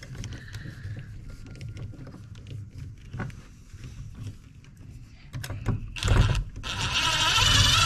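Small scattered clicks and taps of a screw being driven by hand with a screwdriver into a screen door frame, then a short, louder scraping rustle about six seconds in, with louder handling noise near the end.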